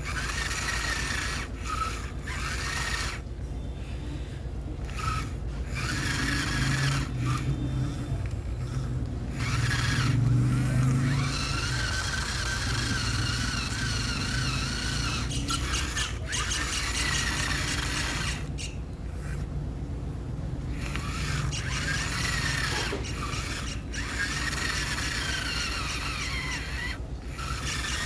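A small electric motor running with a wavering, squealing whine over a low hum, cutting in and out several times.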